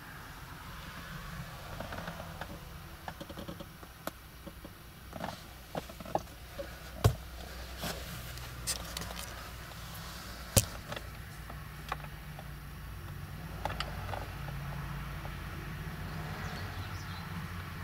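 Chrysler Voyager 2.5 CRD's four-cylinder common-rail turbodiesel idling with the van standing still, a steady low hum heard from inside the cabin. Several sharp clicks and knocks sound over it, two of them loud.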